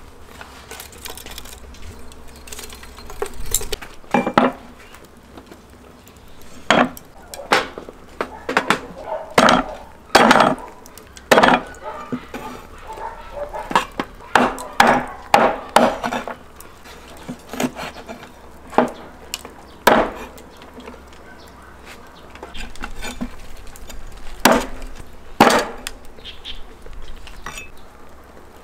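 Irregular knocks and clinks of a meat cleaver and a metal tray on a wooden chopping board while cooked lamb rack is cut up, some strikes ringing briefly.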